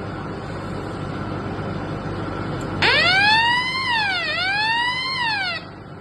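Electronic fire alarm siren sounder switched on for a test: a loud wailing tone starts suddenly about three seconds in, rises, sweeps down and up again, and cuts off after under three seconds. Steady background noise comes before it.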